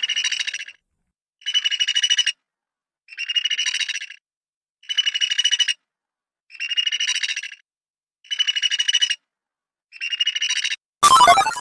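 A high trilling call repeated seven times, each burst lasting under a second and made of rapid pulses around one steady high pitch, with even pauses between them. Near the end comes a single loud hit.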